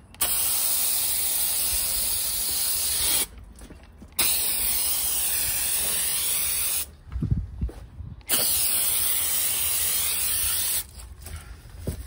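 Hand-pump pressure sprayer hissing as it sprays foam onto an air-conditioner outdoor unit's metal casing, in three long bursts of about three seconds each that start and stop sharply. A few low thumps in the gaps.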